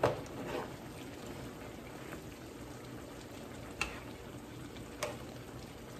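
A pan of ground chicken, butternut squash and coconut milk bubbling at a boil, with a few sharp knocks of a spoon against the pan: one at the start, one just before four seconds and one at about five seconds.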